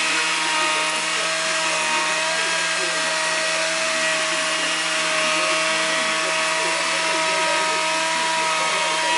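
Electric wood lathe running steadily: a constant motor whine over an even hiss, with no change in speed.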